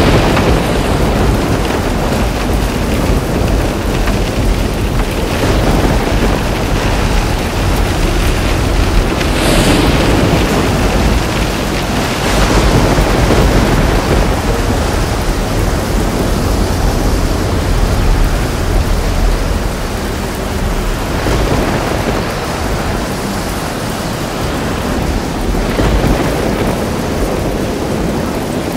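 Thunderstorm: steady rain with a continuous low rumble of thunder, and sharper claps of thunder about nine and twelve seconds in.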